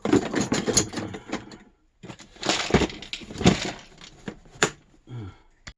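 Tools and small metal parts clattering and rustling as a box of plumbing tools is rummaged through, in two stretches with a short pause between and a few knocks near the end.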